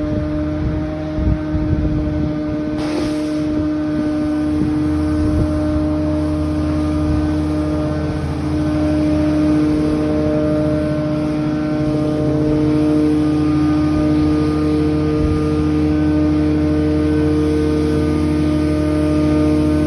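Heavy engine-driven work machinery running with a loud, steady drone. A brief hissing burst comes about three seconds in.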